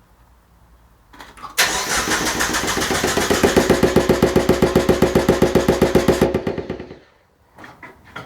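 Mazda MX-5 engine cranked by the starter for about five seconds, with an even pulsing knock, roughly eight beats a second, before it stops abruptly. The knocking comes from the blow-off valve's silicone tee hitting the underside of the bonnet: a sheared intercooler mount leaves the intake tract loose enough to wobble under cranking.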